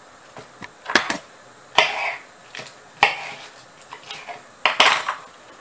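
Cabbage leaves being put into a pot of boiling water: several sharp splashes and knocks against the pot, each dying away quickly.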